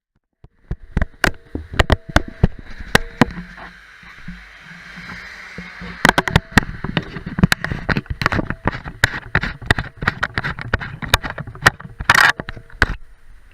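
A dense, irregular run of sharp clicks and knocks, several a second, over a faint steady hiss, starting sharply about half a second in.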